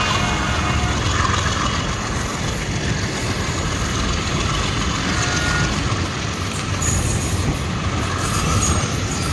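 Freight wagons and passenger coaches of two trains rolling past side by side on adjacent tracks: a steady, loud rumble of steel wheels on rails with clatter over the joints, and a couple of brief faint high squeaks near the end.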